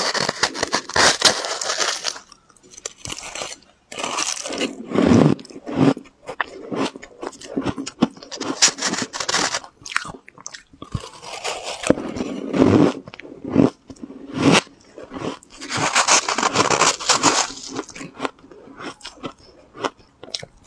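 Biting and chewing mouthfuls of pink shaved ice, a dense icy crunching that comes in bursts every few seconds with quieter pauses between.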